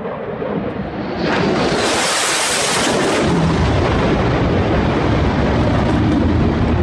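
Jet aircraft making a low pass: a loud rushing jet noise swells about a second in, peaks with a sharp hiss, then settles into a deep, steady rumble as the jet moves away.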